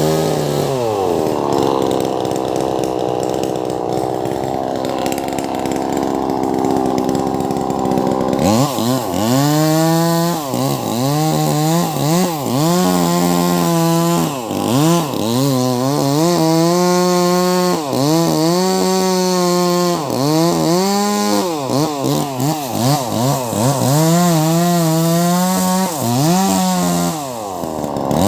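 Wagner 580 chainsaw cutting lengthwise through a large log. For the first eight seconds or so it runs steadily at a lower pitch, then its revs rise and fall over and over.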